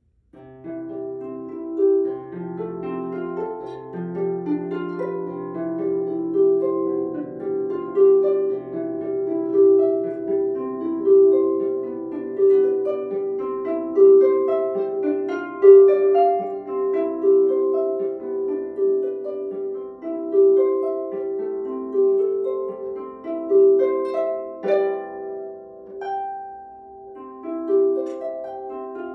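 Solo harp playing: a steady flow of plucked notes over low bass notes that ring on beneath them. The playing begins about half a second in.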